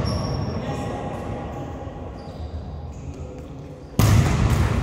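Low gym-hall ambience, then about four seconds in a volleyball is hit hard on the serve: a sudden loud smack that carries through the big hall.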